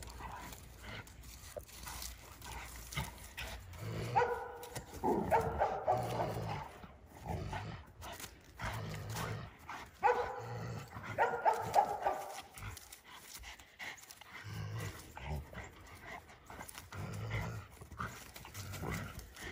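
A Rottweiler barking in repeated bursts while pulling at a tug toy, loudest about four seconds in and again about ten seconds in.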